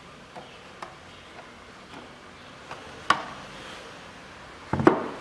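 Plastic engine cover being fitted back onto the engine: a few light clicks, a sharp snap about three seconds in, and a louder thump near the end.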